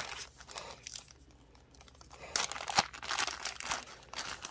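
Small clear plastic bag of beads crinkling as it is handled, in a short spell at the start and again for about two seconds from just past two seconds in.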